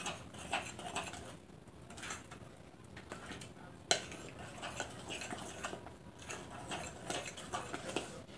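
A spoon stirring thick muffin batter in a mixing bowl: repeated irregular scrapes and clicks of the spoon against the bowl, with one sharper knock about four seconds in.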